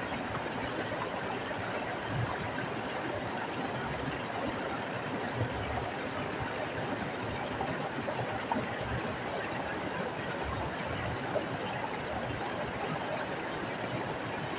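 Stream of water flowing over rocks: a steady rushing with small brief splashes here and there.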